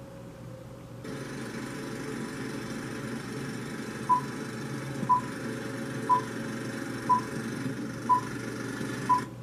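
Film-leader countdown sound effect: a steady hiss and crackle comes in about a second in, and from about four seconds in a short high beep sounds once a second, six beeps in all, marking the numbers counting down.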